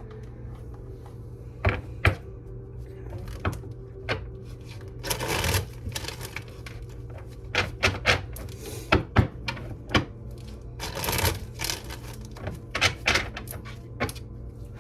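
Tarot cards being handled on a table: a scattered run of sharp taps and snaps, with two longer riffling bursts of shuffling about five and eleven seconds in.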